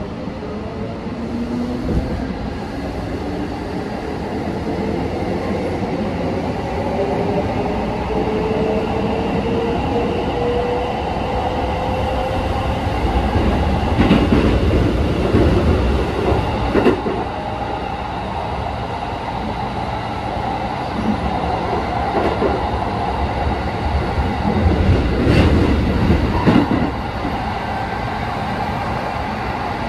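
Keikyu 1500 series field-chopper electric train heard from inside the passenger car as it accelerates. The whine of the traction motors and gears rises steadily in pitch over the first dozen seconds, then the train runs at speed with a steady wheel rumble. The wheels clatter louder twice, around the middle and again near the end.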